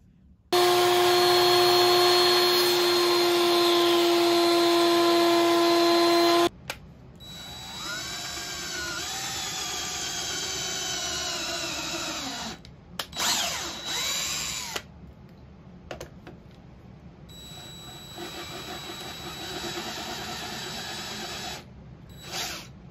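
DeWalt 20V cordless drill boring dowel holes through a doweling jig into a panel edge. It runs in several spells: a loud steady run of about six seconds, then a long run whose pitch dips and recovers as the bit cuts, two short bursts, and a quieter steady run near the end.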